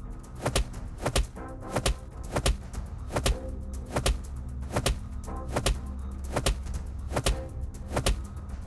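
A run of sharp punch impacts, a little more than one a second, laid over dramatic background music with a steady low drone: dubbed fight sound effects for repeated blows to the stomach.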